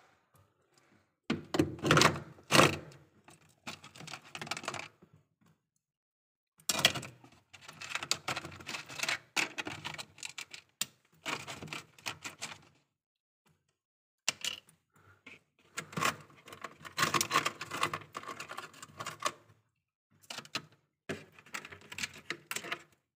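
Freezer frost and ice crunching and crackling as it is pressed and broken up by hand in a glass bowl. It comes in four bouts of dense crackling with short pauses between, the sharpest crunches about two seconds in.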